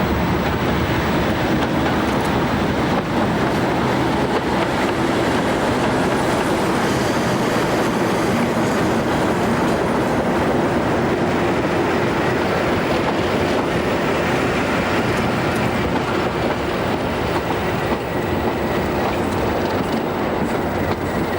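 Train hauled by a pair of Class 37 diesel locomotives running on the rails, a loud, steady mix of diesel engine drone and wheel-on-rail noise.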